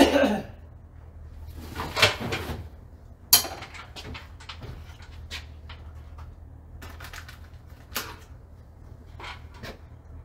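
Clunks and clicks of plastic enclosure parts being handled. There is a loud clatter at the start, another about two seconds in, a sharp click about three seconds in and a lighter knock near eight seconds, over a steady low hum.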